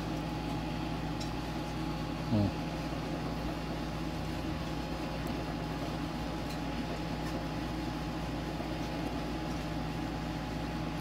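Steady mechanical hum of a running appliance, holding several fixed tones. About two and a half seconds in, a brief louder sound drops quickly in pitch, and a few faint ticks come and go.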